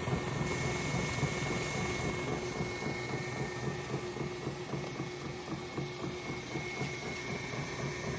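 Sanwa MKS 200S label rewinder running steadily, its winding motor and rollers whirring with a fast fluttery rattle as the printed label web winds from roll to roll, over a faint steady whine.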